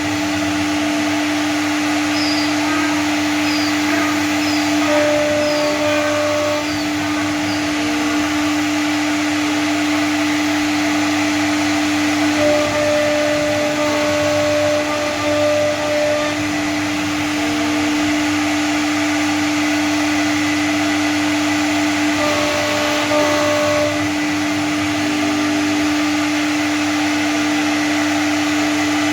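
CNC router running while it carves a design into PVC board: a steady whine over a noisy hiss, with shorter, higher tones that start and stop now and then.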